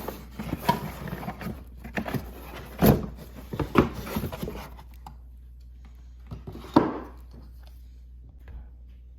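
Handling and unpacking noise: packaging rustling and scraping, with a series of knocks, the loudest about three, four and seven seconds in, then quieter toward the end.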